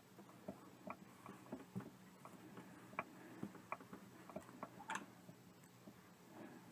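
Faint handling sounds from sewing a plush toy's seam by hand: scattered small clicks and rustles from fingers, needle and thread working the fur and stuffing, with one sharper click about five seconds in, over a low steady hum.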